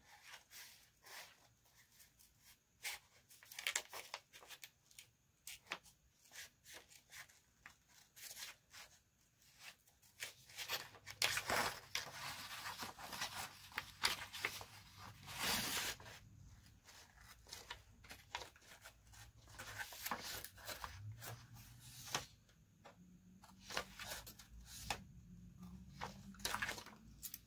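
Scissors snipping through a sheet of patterned paper, with the paper rustling and crinkling as it is turned and handled. Quiet, irregular snips and rustles, with a louder rustle about halfway through.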